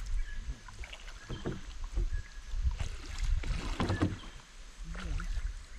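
Water splashing and dripping as a fishing net is hauled up out of a river from a bamboo raft, with irregular knocks and splashes.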